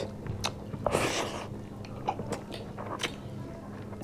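Close-miked eating sounds: people chewing chicken curry and rice with scattered wet mouth clicks and smacks, and a short breathy noise about a second in.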